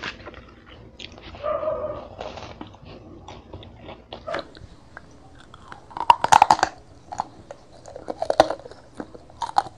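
Close-miked mukbang eating: crunchy bites and chewing, with the loudest run of crunches about six seconds in. There is a short pitched sound about a second and a half in.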